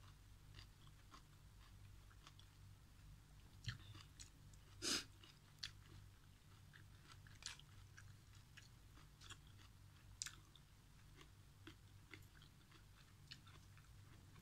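Quiet chewing of instant noodles and bok choy, with scattered faint clicks of a metal spoon in an aluminium wok and one louder sound about five seconds in, over a low steady hum.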